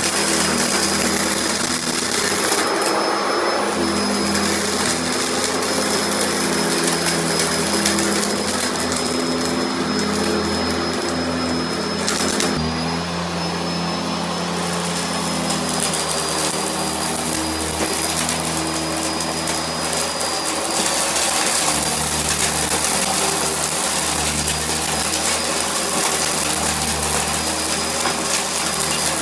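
Sanitaire bagged upright vacuum cleaner running steadily, with a motor hum and a high whine, while it is pushed over carpet, sucking up lint and small beads. The airflow rush swells in a couple of stretches as it draws in debris.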